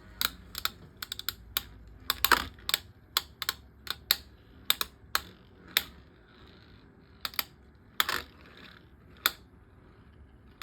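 Two Beyblade Micros mini spinning tops battling in a small plastic stadium: a string of sharp, irregular plastic clicks, some in quick clusters, as the tops strike each other and the stadium walls.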